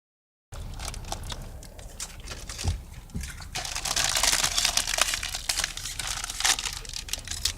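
Chip bags crinkling and rustling as they are handled, with chips crunching, loudest in the middle, over a low steady rumble.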